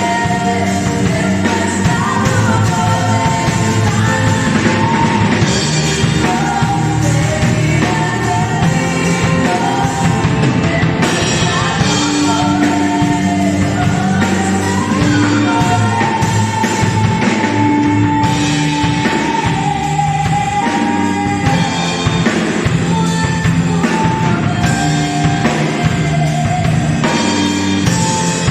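Worship song with singing over a full band with drum kit, at a steady loud level.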